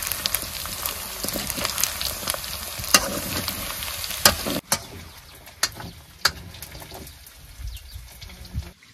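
Food frying in hot oil in a pan, with sharp scrapes and knocks from stirring. The sizzle drops to a much quieter level about halfway through, with a few more knocks after.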